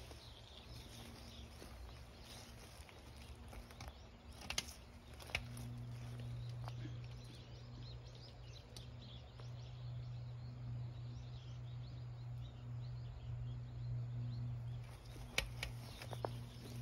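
Quiet outdoor ambience: a steady low hum that grows stronger about five seconds in, with a few sharp clicks and rustles, like footsteps on dry leaves and twigs along the path.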